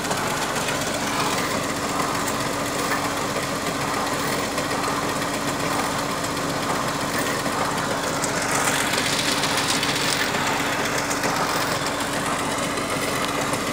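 Truck-mounted borewell drilling rig's engine running steadily with a constant hum. A rushing hiss swells about eight seconds in and fades about two seconds later.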